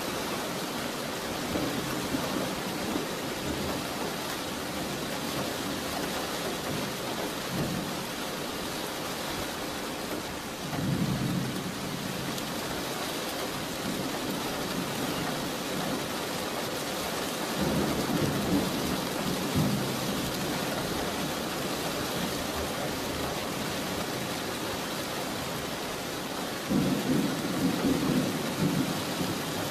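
Thunderstorm: steady rain hissing, with a few low rolls of thunder that swell and fade, the loudest near the end.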